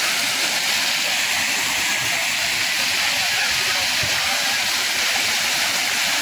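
Steady rushing hiss of Dunn's River Falls' cascading water, unbroken and even.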